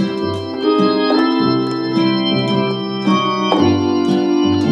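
Roland FR-4X digital accordion playing an organ voice: held right-hand chords over left-hand bass notes, with chord changes about a second in and again past three and a half seconds. The pitch is steady, without tremolo, the setting suited to accompanying hymn singing so that singers can hear the true pitch.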